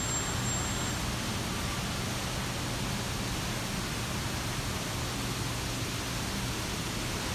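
Steady rushing outdoor city ambience with a low hum underneath.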